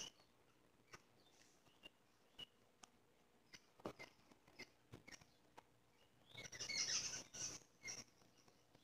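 Faint hand-embroidery sounds: scattered light clicks and ticks of a needle working through cloth, and a longer rustle of thread being drawn through the fabric about two-thirds of the way in.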